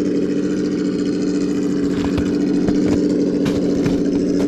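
Simulated engine sound from an RC crawler's Sense Dual ESS sound kit, a steady low engine drone as the truck crawls uphill. A few short clicks and knocks come through it in the middle and near the end.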